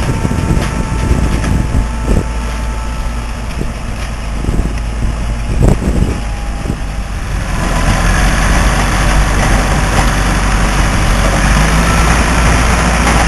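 Engine of a rotary drilling rig running, with a few sharp clanks in the first six seconds. About seven and a half seconds in it picks up and runs louder and steadier.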